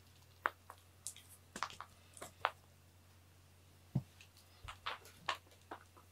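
Scattered light clicks and rustles of a toy mouse on a string being pulled and bumped across foam floor mats, with one soft thump about four seconds in.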